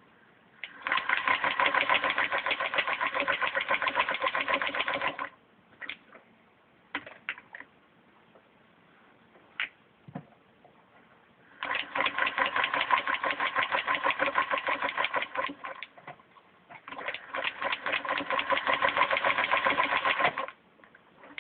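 A 1941 Singer 221 Featherweight sewing machine fitted with a walking foot, stitching through thin fabric and folded padding in a rapid, even clatter. It runs in three bursts: one of about four seconds, then after a pause with a few scattered clicks, two more close together near the end.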